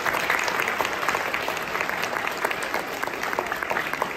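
Audience in a large hall applauding, a steady patter of many hands clapping.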